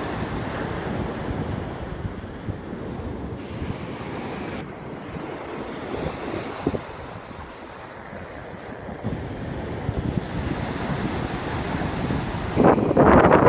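Ocean surf breaking and washing up the beach, with wind rumbling on the microphone. A louder rush comes about a second before the end.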